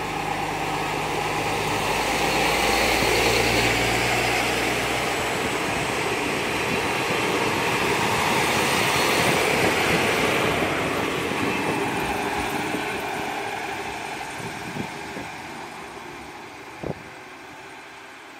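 Two-car KiHa 37 diesel railcar train pulling out: its engine runs under power and the wheels rumble on the rails as the cars pass close by, then the sound fades steadily as the train draws away. A single short knock is heard near the end.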